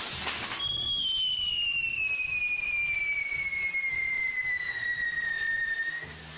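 Whistling firework on a burning castillo fireworks tower: one long whistle that slides steadily down in pitch for about five seconds, after a brief burst of crackle near the start.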